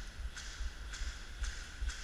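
Footsteps crunching on dry ground or leaves at a walking pace, about two steps a second, over a low rumble.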